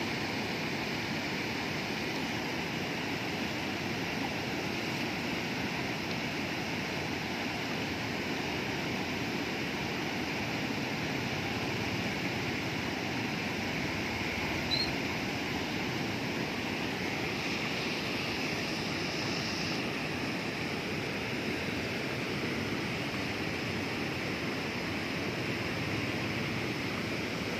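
Steady rushing of water pouring over a long low weir and churning over the rocks below it. A single short high chirp sounds about halfway through.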